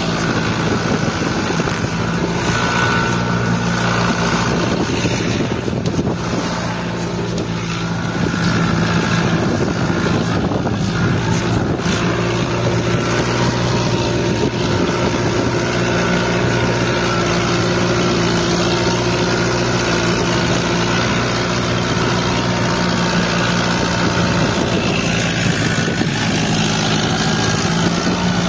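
Fiat 640 tractor's four-cylinder diesel engine running hard and steady under heavy load while dragging chained logs through deep mud. The sound eases slightly for a moment about six seconds in, then picks up again.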